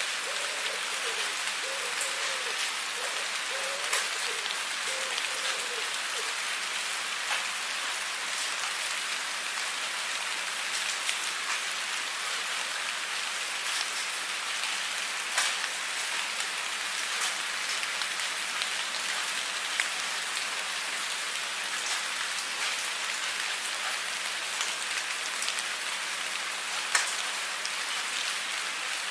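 Steady rain falling on a surface: a dense, even patter with occasional louder single drops. A faint wavering tone repeats about once a second during the first six seconds.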